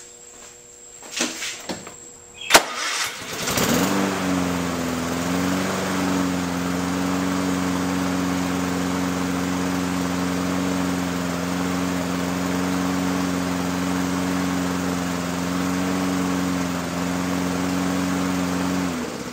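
A few knocks and a sharp click, then a Lawn-Boy mower engine starts about three and a half seconds in and runs at a steady speed, smooth and no longer over-revving, with its governor freshly adjusted. It shuts off just before the end.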